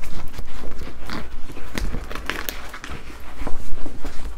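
Plastic film and paper of a rolled diamond-painting canvas rustling and crinkling as it is handled, in irregular bursts.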